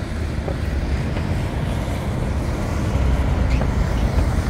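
Busy city street ambience: a steady low rumble of road traffic with wind buffeting the microphone, growing a little louder about three seconds in.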